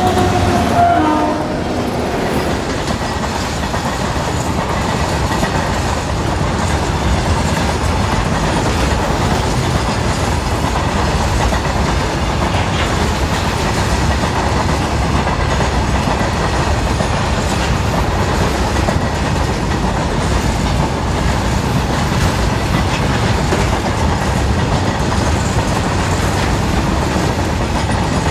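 Freight train of open BOXN wagons rolling past at speed close by: a steady rumble and clatter of wheels over the rail joints. In the first second and a half the horn of the leading twin WAP7 electric locomotives is still sounding, dropping in pitch as they pass, then stops.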